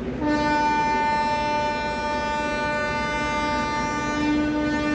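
Indian Railways locomotive horn sounding one long, steady blast that begins a moment in and is still going at the end, over the rumble of the moving train.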